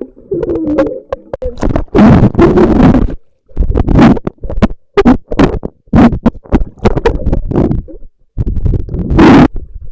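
Water churning and sloshing against a waterproof camcorder held in or under pool water, heard as loud, muffled, distorted rumbling in irregular bursts.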